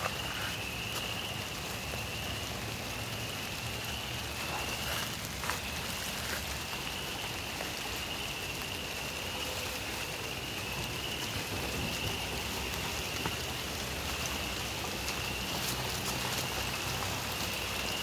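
Steady rain falling, with a chorus of frogs calling as a high, continuous trilling that swells and fades about every second and a half to two seconds.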